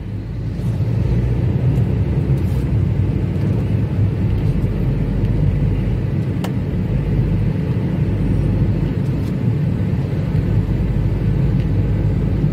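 Steady low rumble of engine and tyre noise inside the cabin of a car driving along a road at a steady speed.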